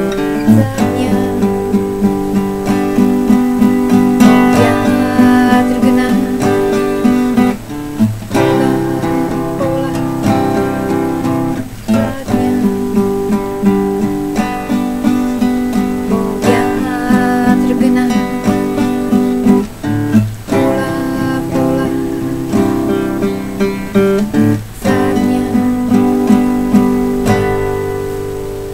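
Acoustic guitar strummed and picked in a steady rhythm, an instrumental run of chords with brief breaks between phrases.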